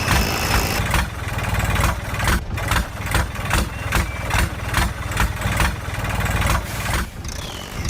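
An engine idling: a steady low rumble with a regular chug about three times a second, easing off near the end.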